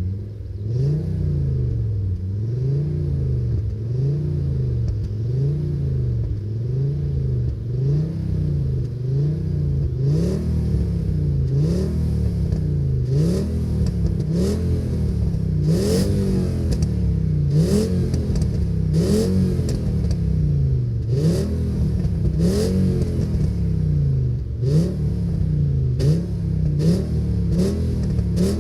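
Seat Toledo's 2.3-litre VR5 (AGZ) five-cylinder engine on its stock exhaust, revved up and let fall back about once a second, over and over. The blips become sharper about a third of the way in.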